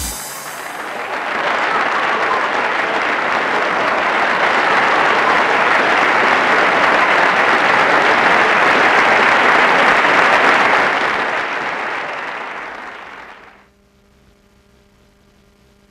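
Audience applauding a finished song: the clapping builds over the first couple of seconds, holds loud, then dies away about thirteen seconds in, leaving only a faint steady hum.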